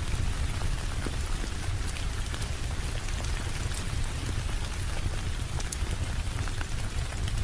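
Steady rain ambience: an even hiss of rainfall over a low rumble, with scattered sharp ticks.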